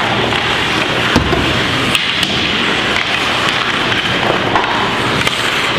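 Ice hockey play in an indoor rink: a steady rush of skates on the ice, with a few sharp clacks of sticks and puck. The heaviest knock comes about a second in.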